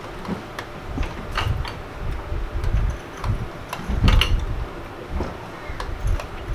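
Irregular low clunks and knocks with light metallic clicks, as a differential and its bracket are jacked up on a floor jack and worked into place under the car. The heaviest knock comes about four seconds in.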